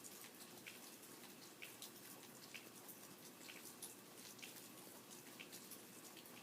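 Faint rain: separate raindrops tick irregularly, a few each second, over a soft steady hiss.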